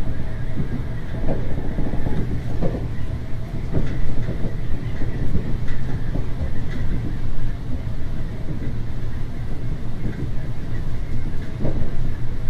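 Diesel railcar running along the track: a steady rumble with occasional clicks of wheels over rail joints.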